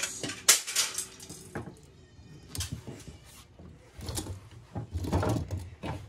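Scattered knocks and clatter of metal and plastic parts being handled and pulled out of a server's case, with a brief high squeak about two seconds in and busier knocking near the end.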